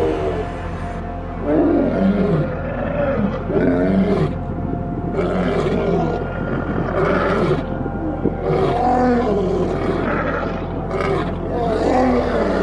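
Two male lions roaring, a long series of repeated roars, with a tiger's roar just at the start.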